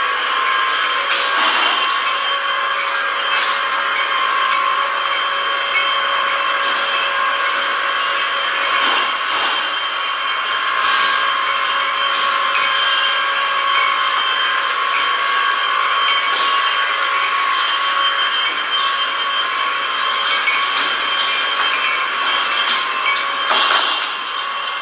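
Wine bottling line machinery running: the filler-capper and bottle conveyor make a steady mechanical whine with several held tones. Occasional sharp clicks and knocks cut through it.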